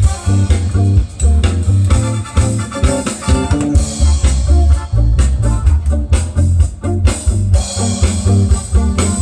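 Loud band music with guitar, bass guitar and drum kit, strong bass notes over a steady beat.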